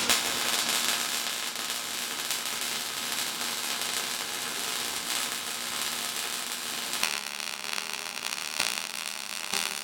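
Steady crackling hiss of MIG welding, typical of joining two half-circle steel rods into a drum counter hoop.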